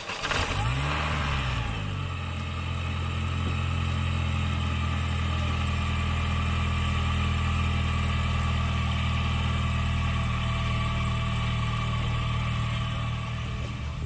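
2004 Mini Cooper S's supercharged 1.6-litre four-cylinder engine starting, flaring up in revs in the first couple of seconds and settling into a steady idle. The exhaust leak is fixed with a new flex pipe, so the engine runs without the leak's noise.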